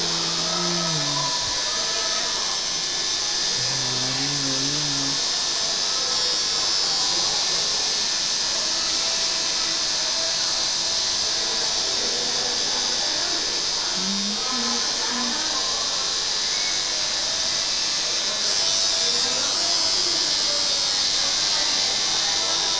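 Electric tattoo machine buzzing steadily as it works the needle into skin: a continuous, even, high buzz.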